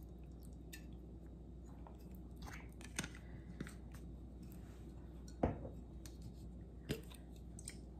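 Plastic sauce bottles being handled and capped: a few light clicks and knocks, the loudest about five and a half seconds in, over a low room hum.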